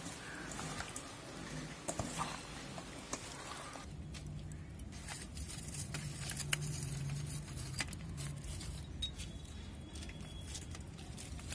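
Wet squishing of hands mixing marinated chicken pieces in a steel bowl, then, about four seconds in, sharp clicks and crackles as tongs move burning charcoal in a clay pot, over a low steady hum.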